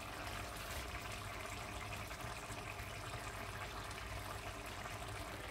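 Steady kitchen background noise: an even hiss over a low hum.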